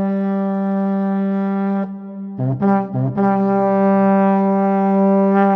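Brass instrument playing one low note: a long held note, three short notes about a third of a second apart, then another long held note.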